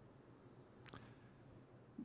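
Near silence: faint room tone, with one faint click about a second in.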